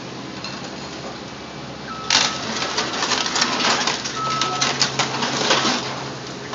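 Scrap car metal clattering and crunching in a Caterpillar 318C excavator's grapple, a dense run of sharp rattles and clanks about two seconds in that lasts nearly four seconds, with a short high squeal twice through it. The excavator's diesel engine hums steadily underneath.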